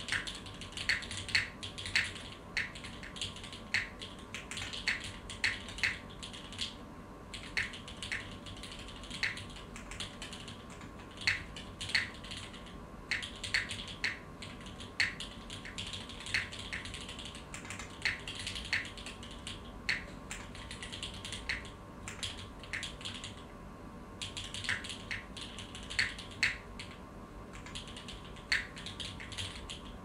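Typing on a Singa Kohaku mechanical keyboard with lubed and filmed Cherry MX Vintage Black switches, GMK Honeywell keycaps and an aluminium plate: a steady, irregular run of keystroke clacks, broken by a few short pauses.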